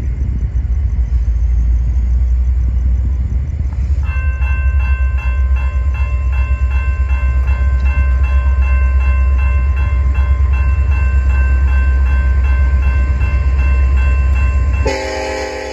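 Railroad crossing bell starts ringing about four seconds in, in a steady rhythm over a heavy low rumble, as the crossing signals activate and the gates lower. Near the end a locomotive horn sounds from an approaching train.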